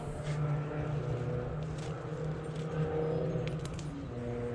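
Bitter melon vine leaves rustling, with a few light clicks, as a fruit is pulled from the vine by hand, over a steady low mechanical hum.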